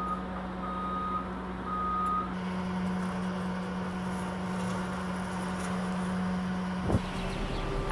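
A vehicle's reversing alarm beeps three times, about once a second, over a steady low engine drone, then stops about two seconds in. The drone carries on, and a single sharp knock comes near the end.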